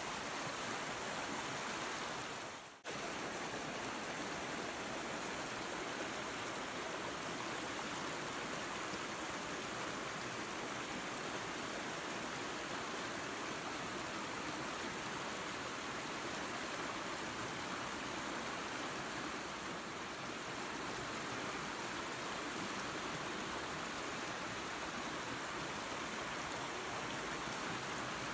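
Steady rushing of a waterfall and creek. About three seconds in, the sound fades briefly and cuts straight back in.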